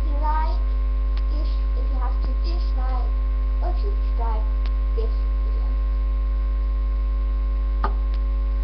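Steady low electrical mains hum. A few faint murmured vocal sounds and a couple of small clicks ride over it.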